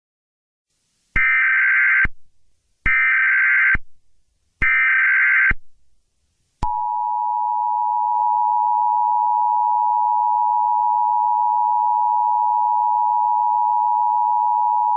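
Emergency Alert System tones: three short bursts of SAME header data, each just under a second long and spaced evenly, then the steady two-tone EAS attention signal, which starts about six and a half seconds in and holds unchanged.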